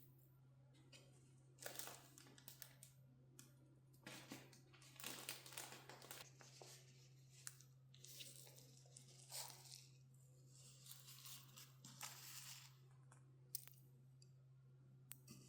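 Faint rustling and crinkling from handling things during kitchen work, in irregular swishes with a few light clicks, over a steady low hum.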